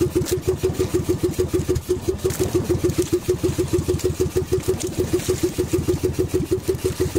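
Small outrigger fishing boat's engine running steadily, a regular low thumping of about six or seven beats a second.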